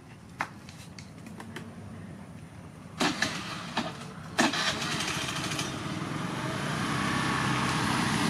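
A small motor scooter's engine: a few sharp clicks and knocks about three to four seconds in, then the engine starts and runs steadily, growing louder for a couple of seconds before holding level.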